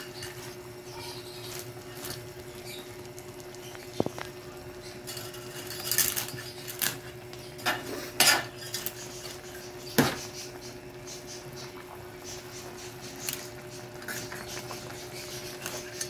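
Spatula and metal tongs scraping and knocking against a large metal wok as a full load of noodles is tossed and mixed, with a few sharp clinks about 4, 8 and 10 seconds in. A steady low hum runs underneath.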